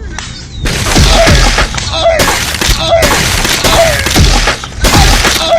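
Loud, edited-in meme crash sound effects, about one a second. Each has a shattering burst over a low falling boom.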